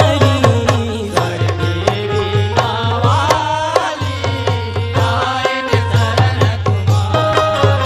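Live Indian devotional bhajan music: dholak and mandar drums keeping a steady beat under a gliding melody line, with banjo in the ensemble.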